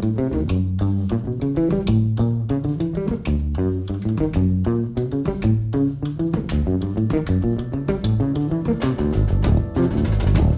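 Jazz band music: guitar and bass guitar playing a fast run of short plucked notes over a moving bass line, with cymbals growing louder near the end.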